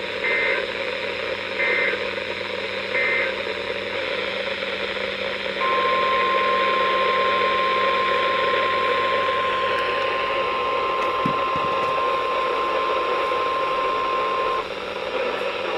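Emergency Alert System weather radio alert over steady radio hiss: three short data bursts of the digital SAME alert header, about a second and a half apart, then the steady 1050 Hz warning alarm tone, held for about nine seconds before it cuts off. It signals that a new weather warning is about to be read.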